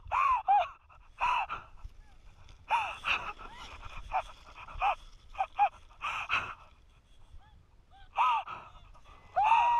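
High-pitched laughter, squeals and gasps in short repeated bursts, from people tumbling off sleds in the snow.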